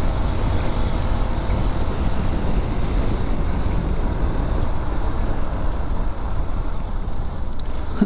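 A Hero XPulse rally-edition motorcycle being ridden along, its engine and tyre noise buried under heavy wind buffeting on the microphone: a steady, dense rush, heaviest in the low end.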